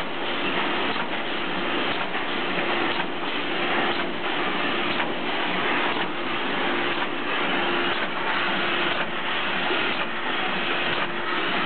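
Roof tile extruder running in production: a steady mechanical noise with a faint hum, swelling in a regular pulse about once a second.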